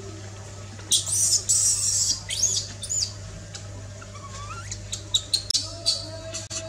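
Baby long-tailed macaque screaming in high-pitched squeals with rising cries, loudest from about one to three seconds in, then a fainter cry. A run of short clicks and chirps follows near the end.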